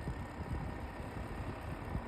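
LG AeroTower air-purifier fan running, a steady rush of air over an uneven low vibration rumble. The noise persisted after a new original filter was fitted, and LG's engineer says this kind of vibration is normal at fan speed 5 and above.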